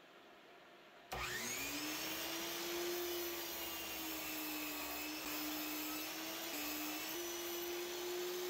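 Sliding miter saw with a 10-inch blade switched on about a second in, its motor spinning up with a quick rising whine and then running steadily, the pitch dipping slightly a few times as the blade bevels the edges of a small wooden bowl blank at 45 degrees.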